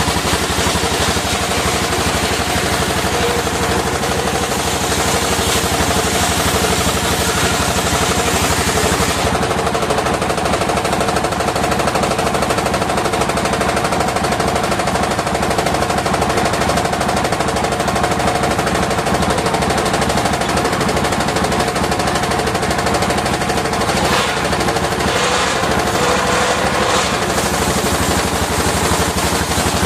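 Circular disc sawmill running, with a rapid, steady pounding beat and a sustained tone over it; the high hiss falls away about nine seconds in.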